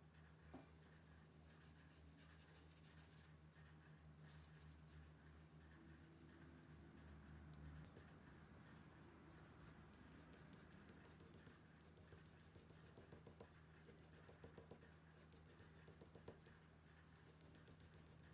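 Faint pencil scratching on paper in quick, repeated shading strokes, over a low steady hum.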